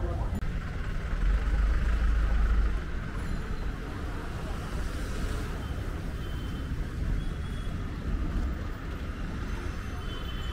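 Street traffic ambience: a steady low rumble of passing road vehicles, swelling louder for a couple of seconds about a second in.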